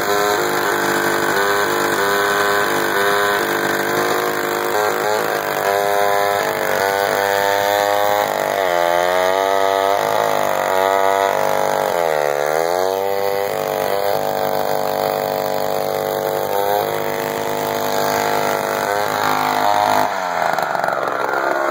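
1957 David Bradley two-stroke chainsaw running hard while ripping lengthwise through a large log. The engine note dips deeply twice, around 9 and 12 seconds in, as it bogs under the load, then picks back up; near the end its pitch falls away.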